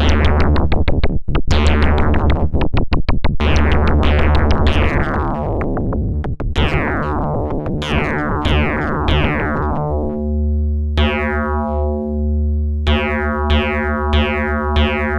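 Eurorack modular synthesizer patch run through the Sinulator modulator module, playing repeated notes with crunchy, bright attacks that quickly fall away over a steady low drone. The tone is dense and gritty at first and clears to clean pitched notes about two-thirds through, repeating roughly every half second near the end.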